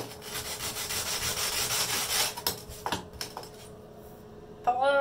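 Pumice stone scrubbed back and forth against a bathtub's enamel, a fast rasping rub for about two seconds, then a few light knocks. The stone is scouring grime marks off the tub.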